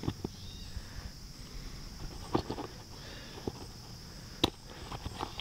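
Hands handling a nylon bushcraft kit bag: soft rustles and knocks of fabric and plastic hardware, with a sharp plastic click about four and a half seconds in as the lid's buckle is worked open.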